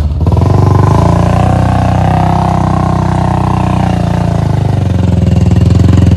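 Motorcycle engine revving hard under load, its rear wheel spinning in loose sand on a dirt climb. The pitch rises in the first second, holds, sags a little past the middle and picks up again near the end.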